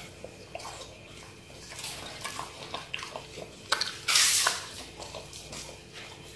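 Siberian husky eating watermelon out of the rind: wet chewing and slurping with a quick run of clicks, and a louder, longer wet burst about four seconds in.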